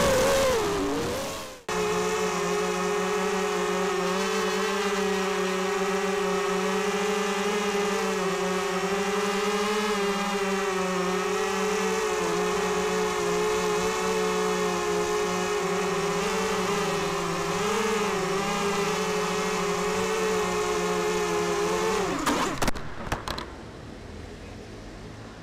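Racing quadcopter's electric motors spinning steadily at a constant pitch. They stop abruptly about 22 seconds in, followed by a few short knocks.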